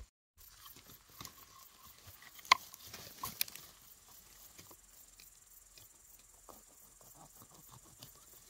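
Grass stems and twigs rustling and crackling as a hand works through long grass at the base of a large bolete mushroom. There is a sharp click about two and a half seconds in and a smaller one nearly a second later.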